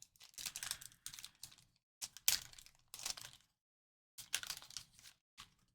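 Trading cards being handled and flicked through, with the crinkle of a torn-open pack wrapper, in short clusters of clicks and crackles separated by pauses.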